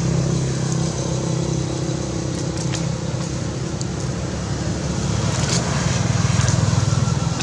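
An engine running steadily, a low hum that swells and pulses about six seconds in, with a few faint clicks over it.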